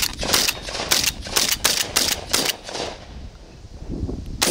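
A quick, irregular run of about ten sharp cracks in the first two and a half seconds, then a quieter stretch before two more near the end.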